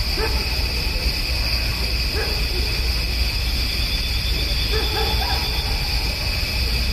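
Distant dog barking in short calls: one at the start, another about two seconds in, then a quick run of several around five seconds in, over a steady high-pitched drone.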